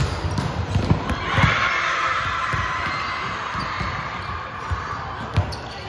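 Repeated low thuds of a ball bouncing and feet on a hall floor. A steady rushing noise comes in about a second and a half in and slowly fades.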